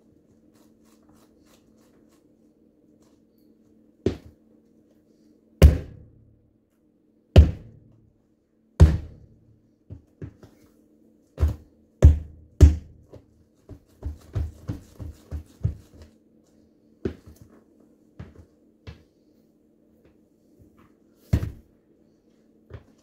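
Sneakers stomping on a whole, uncracked pumpkin on a wooden floor: sharp knocks with deep thuds. A few are spaced out, then comes a quick run of them, and one more near the end.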